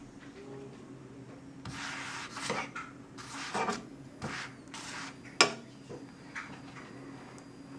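A wheat paratha being pressed and pushed around a nonstick frying pan: a series of short rubbing, scraping strokes, with one sharp knock about two-thirds of the way through.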